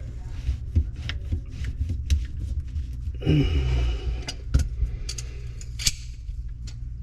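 Handling of plastic drain parts and tools inside a cramped sink cabinet: scattered light clicks and knocks, with a scraping rub lasting about a second roughly three seconds in.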